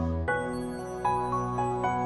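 Instrumental intro music: held, layered notes that change chord a few times.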